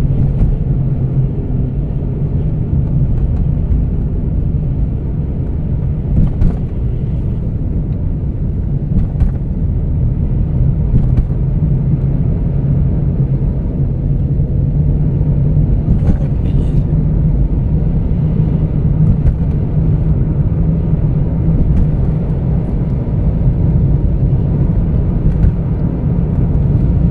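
Steady low drone of a car being driven, engine and road noise heard from inside the cabin, with a few brief light knocks.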